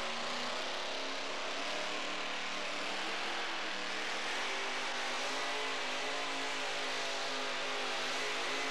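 A two-wheel-drive pulling truck's modified engine running flat out at high revs under full load as it drags a weight-transfer sled. The sound is loud and steady throughout.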